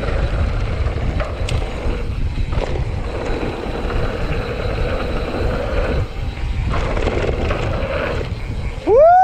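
Mountain bike rolling fast down a loose gravel trail: a steady rumble of tyres and wind buffeting the microphone. Right at the end a rider lets out a loud, high whoop that swoops up and down twice.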